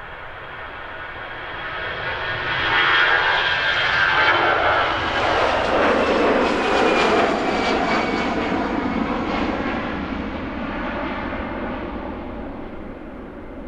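Airbus A320-214's CFM56 turbofan engines at takeoff thrust as the airliner passes. The roar swells, is loudest from about three to eight seconds in, where its whining tones fall in pitch, then fades away.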